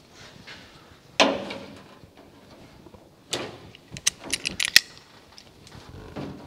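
Sheet-steel repair piece and a pair of locking pliers (vice grips) clanking and clicking against the car body as the piece is set in place and clamped. There is a sharp metallic clank about a second in, a knock a couple of seconds later, then a quick run of clicks from the pliers being fitted and locked.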